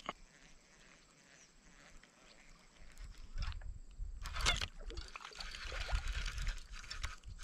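Faint handling noises from the angler's rod and reel as a lure is cast and worked in: a click at the start, then quiet irregular rustling with a low rumble from about three seconds in, loudest about four and a half seconds in.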